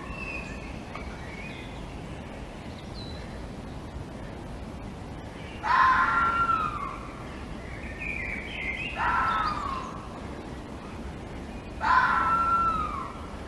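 Red fox screams: three harsh, pitched calls about three seconds apart, each lasting about a second and falling in pitch, with softer, higher calls just before the second one.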